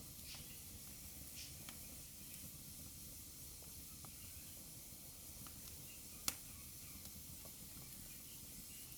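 Wood fire burning in a fireplace: a steady low rumble and hiss with scattered small crackles, and one sharp, loud pop about six seconds in.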